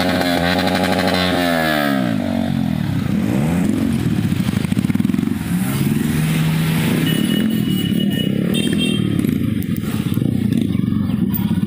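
Yamaha R15 single-cylinder sport bike engine revved up and down several times in quick succession, followed by motorcycle engines running and pulling away as the group rides off.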